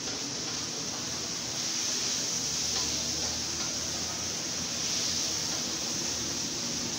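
Chicken pieces frying in oil in a pan on a gas stove, sizzling with a steady hiss as they are stirred with a wooden spatula.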